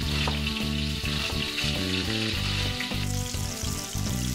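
Flour-coated hake pieces frying in vegetable oil in a pan, a steady sizzle, with background music underneath.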